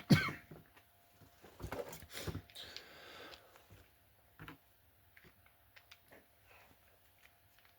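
Light clicks and knocks of small plastic model-wagon parts and wheel sets being handled and fitted into their slots, with a short rustle about three seconds in and a few faint ticks after.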